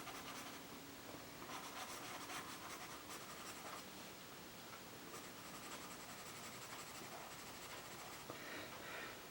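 Faint scratching of a Stabilo CarboThello pastel pencil across Strathmore mixed media paper with a vellum surface, in quick repeated strokes.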